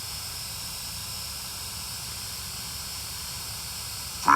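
Steady hiss with no clear source. Right at the end a short, loud pitched sound cuts in.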